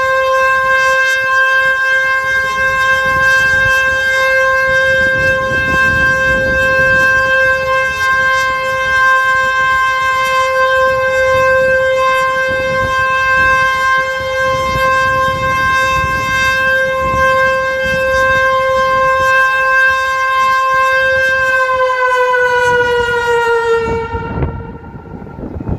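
HLS 273 civil-defence siren sounding one loud steady tone. About three seconds before the end its pitch slides down and the sound fades out as the test alarm finishes.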